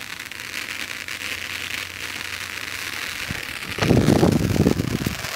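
Two handheld titanium sparkler wands burning with a steady fizzing hiss. About four seconds in, a louder, lower rush of noise lasts about a second.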